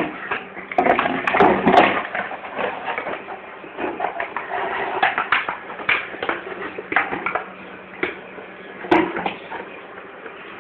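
A clear plastic bottle clattering and crinkling on stone paving as a Pomeranian puppy plays with it: irregular clusters of clicks and knocks, with one sharper knock near the end.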